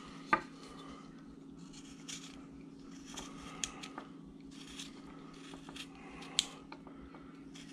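Small carving knife slicing and scraping wood in short, scattered cuts, the sharpest just after the start and about six and a half seconds in, over a steady low hum.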